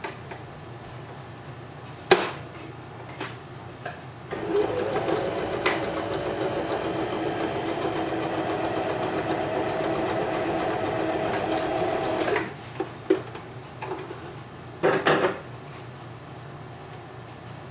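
A small home electric sewing machine stitching steadily for about eight seconds, sewing shut the opening of a stuffed doll pillow, after a few sharp clicks as it is set up. Near the end come a couple of short snips as the threads are cut with scissors.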